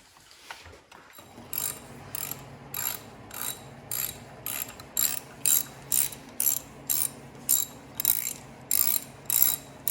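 Hand ratchet wrench worked in quick strokes, each back-stroke a short burst of pawl clicks, about twice a second. A steady low hum comes in about a second in and runs beneath it.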